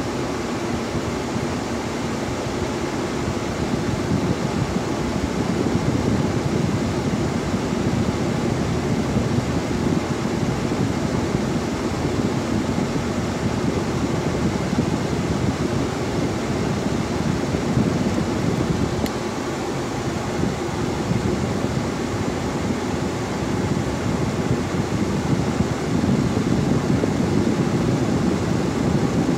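The 2002 Ford F-150's A/C blower pushing air out of a dash vent: a steady rush of air. The air is cooling down, a sign that the newly replaced blend door actuator is now sending the air through the cold side.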